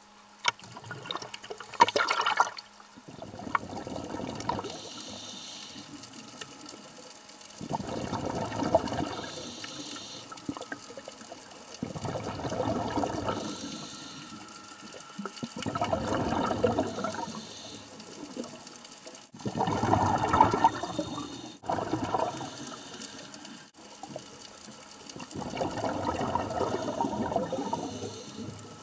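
Scuba diver breathing underwater through a regulator: a gurgling rush of exhaled bubbles about every four seconds, each lasting a second or two.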